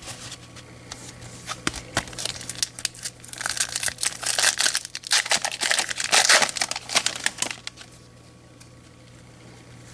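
Baseball card pack wrapper being torn open and crinkled by hand. There are a few light clicks at first, then a few seconds of dense crinkling that stops well before the end.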